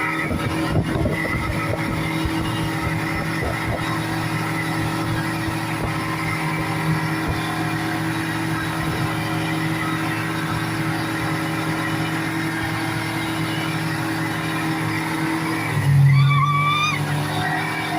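Speedboat engine running steadily at a constant speed. About sixteen seconds in it briefly gets louder, with a short wavering high-pitched sound over it.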